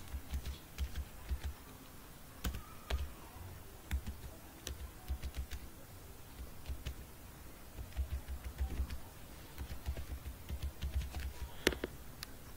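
Computer keyboard typing: short runs of quick keystrokes with brief pauses between them.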